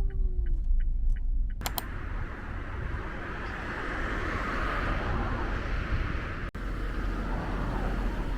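Background music ends about a second and a half in, giving way to steady road-traffic noise with a low rumble.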